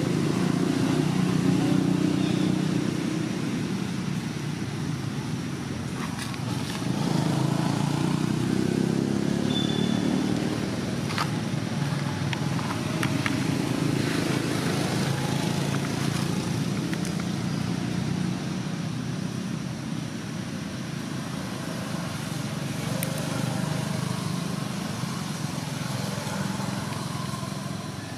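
Motor vehicle engines running, with a steady low hum that swells and fades over several seconds, plus a few faint clicks.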